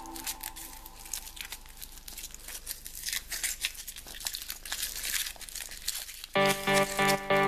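Thin foil wrapper of a Kinder Surprise chocolate egg crinkling and tearing as it is peeled off by hand, a rapid irregular crackle. Near the end, louder rhythmic music comes in.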